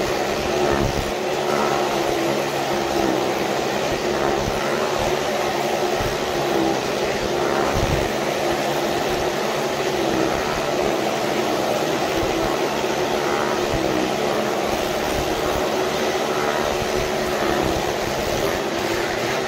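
Motorcycles racing round the vertical wooden wall of a well-of-death, their engines held at steady high revs. The sound swells every second or two as a rider passes close.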